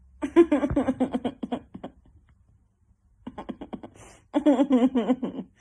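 Pet bird chattering in two bursts of speech-like babble, with quick clicky pulses and no clear words.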